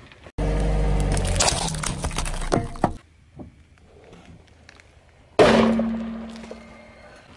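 A loud stretch of crunching and cracking under a car tyre that cuts off after a few seconds. About five seconds in, a rubber play ball bursts under the tyre with a sudden bang, its ringing fading over a couple of seconds.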